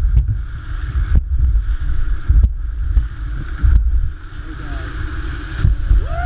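Wind buffeting the microphone over the steady rush of river water, with a few sharp knocks.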